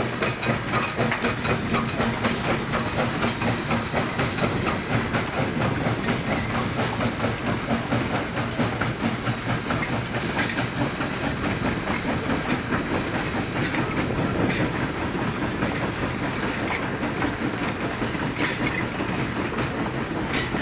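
A steam-hauled passenger train passing: Valley Railroad No. 40, a 2-8-2 Mikado steam locomotive, and its coaches rolling by, the wheels clicking over the rail joints in a steady rhythm.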